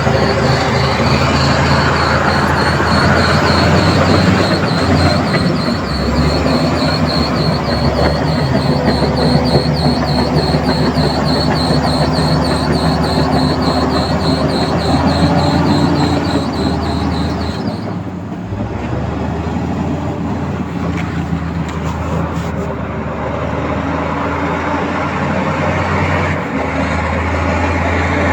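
Heavy diesel construction machinery running, with a steady low engine drone under a fast, continuous metallic rattle and squeal. The high rattle stops about eighteen seconds in, while the engine keeps running.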